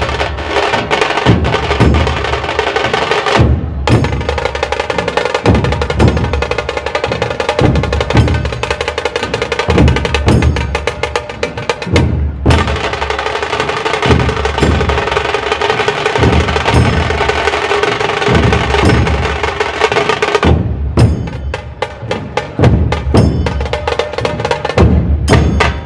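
Dhol tasha ensemble drumming: deep dhol beats under fast, rattling tasha rolls. The drumming stops for a moment three times and starts again.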